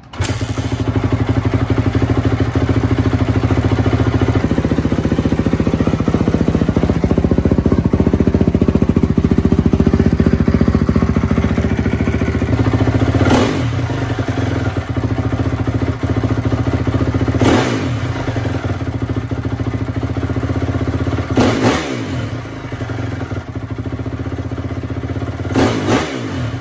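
2004 Honda CRF250R's rebuilt single-cylinder four-stroke engine starting up and running at a high idle, then dropping to a lower idle about halfway through. It is revved with four sharp throttle blips, each rising and falling back to idle.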